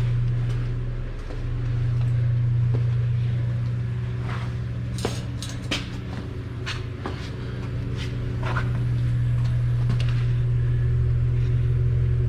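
Automotive smoke machine's air pump humming steadily as it pushes smoke into the intake to show up vacuum leaks, with a brief dip about a second in. A few sharp clicks and knocks come partway through.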